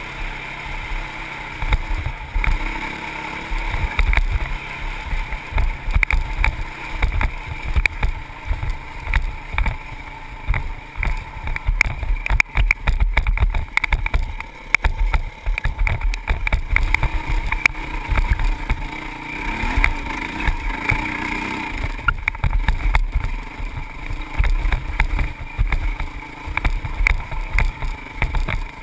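Honda CRF450X single-cylinder four-stroke dirt bike engine running under way, its pitch rising and falling with the throttle, with wind buffeting the helmet-mounted microphone.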